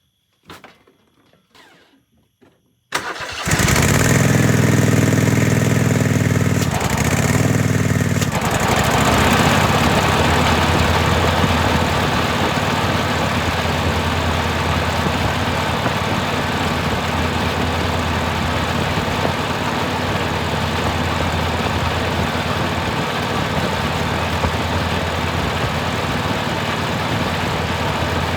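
Dixie Chopper Silver Eagle zero-turn mower's engine starting suddenly about three seconds in, after a few faint clicks. It runs low for about five seconds, then rises to a louder, steady full run, with its newly fitted belt tensioner assembly in place.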